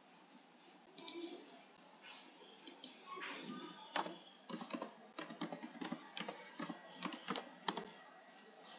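Typing on a computer keyboard: irregular runs of key clicks, starting about a second in.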